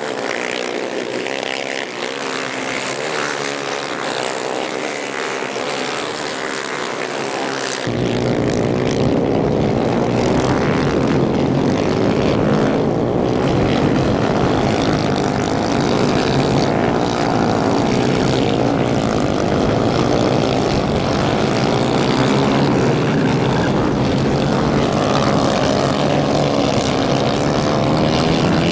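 Several 250 cc racing kart engines running hard at high revs, their pitch rising and falling as the karts accelerate, lift for corners and pass. The sound gets louder and fuller about eight seconds in.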